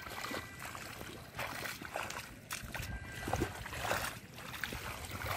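Hands digging and scooping through wet mud and shallow water: irregular squelching and sloshing.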